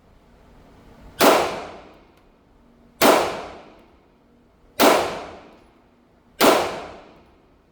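Four pistol shots from a Taurus G2C, fired slowly and evenly about a second and three-quarters apart, each a sharp crack with a short echoing tail. This is aimed single-shot fire at a paper target.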